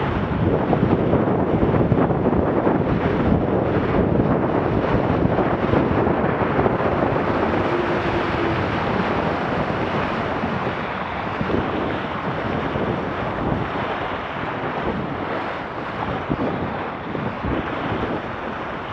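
Wind buffeting the microphone over the steady rush and splash of water along the hull of a Laser Radial dinghy sailing fast through choppy water.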